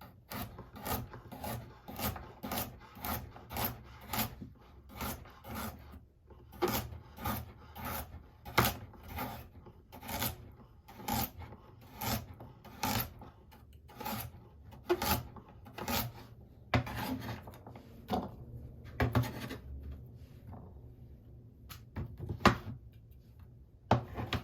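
A carrot being worked with a hand blade on a board: a steady run of short strokes, about two a second, which become sparser and irregular in the second half.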